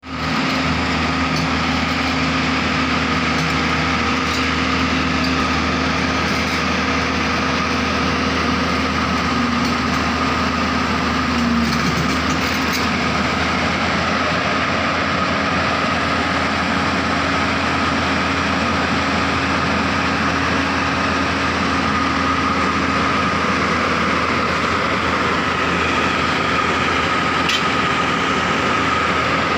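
Tata Hitachi excavator's diesel engine running steadily, with a steady high whine over a low hum.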